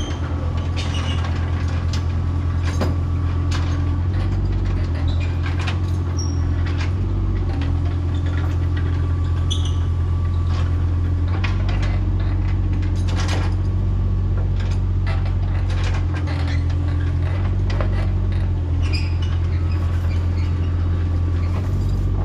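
Excavator's diesel engine running steadily, its pitch shifting slightly a few times, with scattered metal clanks and squeaks from the chained load.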